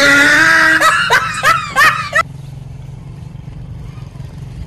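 Shrill laughter with wavering pitch that cuts off suddenly about two seconds in, leaving only a low steady hum.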